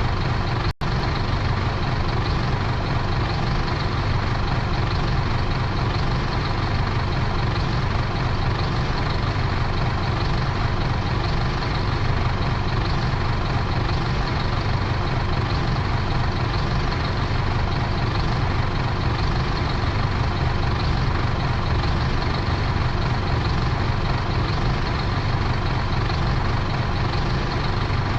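Bus engine idling steadily while the bus stands still, with a deep, even rumble and a momentary dropout just under a second in.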